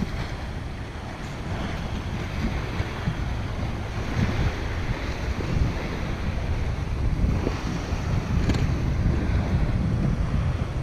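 Wind buffeting the microphone in a low, uneven rumble, over small waves washing onto a riverbank.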